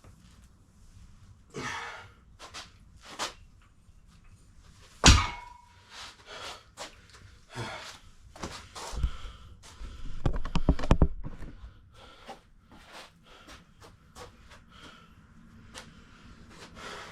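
Knocks and thunks of workout equipment in a small room, with breathing between them. The loudest is one sharp clank about five seconds in that rings briefly, and there is a rapid rattling clatter around ten to eleven seconds.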